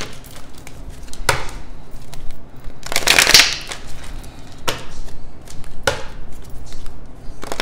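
A tarot deck being shuffled by hand: short papery card rustles and snaps about every second or so, with a longer shuffle about three seconds in.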